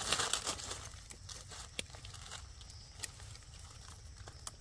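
Dry leaf litter rustling and crackling under hands and a knife while wild mushrooms are picked from the forest floor: a louder rustle at the start, then quieter crackling with a few small sharp clicks.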